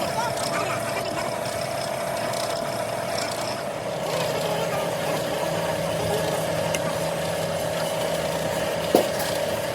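Heavy machinery running steadily with a constant hum, a lower tone joining about four seconds in, and a single sharp knock near the end.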